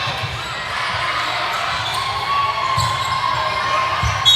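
Volleyball being played: dull thumps of the ball being struck several times over a background of spectators' voices.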